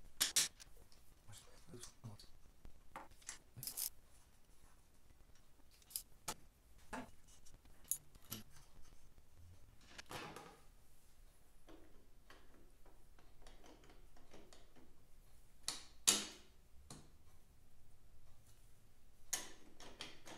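Faint, scattered metallic clicks, clinks and short scrapes of a spanner working the nuts and of steel mounting plates being handled as they come off the top of a vintage Vincent V-twin engine, with one longer scrape midway.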